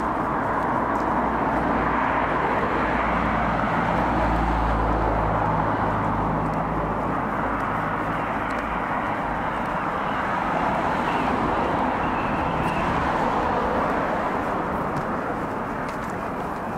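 Road traffic noise: a steady rushing of vehicles on the road that swells early and eases near the end, with a low engine rumble a few seconds in.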